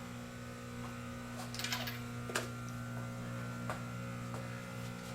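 Steady low electrical hum in a machine shop, with a few light clicks and a short scrape scattered through it.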